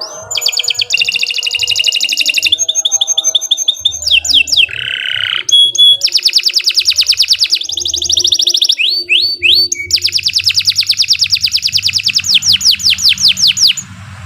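Domestic canary singing a long, loud song: runs of rapidly repeated notes that switch between several different trills, with a short break about five seconds in. The song stops just before the end.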